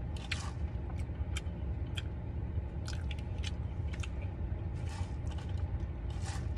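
Sips of strawberry lemonade through a plastic straw, with swallowing and scattered short mouth clicks, over a steady low hum inside a car.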